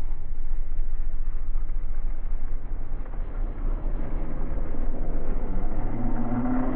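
Boom Racing BRX02 Defender 1/10 scale RC crawler driving over terrain, with its electric motor and geared drivetrain whining over a steady low rumble. The whine grows stronger and steadier in the last couple of seconds.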